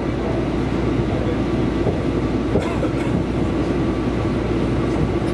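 Tobu Railway electric train running at speed, heard from inside the carriage: a steady wheel-and-rail running noise, with a couple of faint clicks from the rail joints about halfway through.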